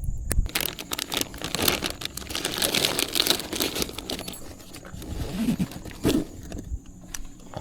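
Plastic tackle packaging crinkling and rustling in the hands as fishing weights and hooks are dug through; the dense crackle eases off a little over halfway in, leaving a few scattered clicks.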